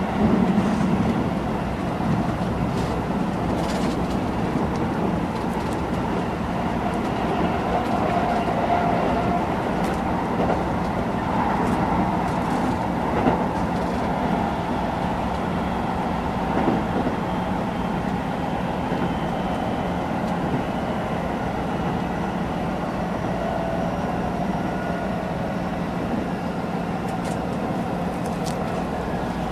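Keisei 3000 series electric commuter train running, heard from inside a passenger car: a steady rumble of wheels on rail and running gear, with a few faint clicks.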